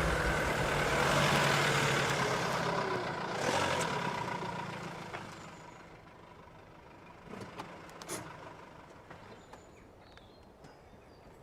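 A motor vehicle running, its engine noise fading away over the first several seconds, then a couple of short sharp clicks.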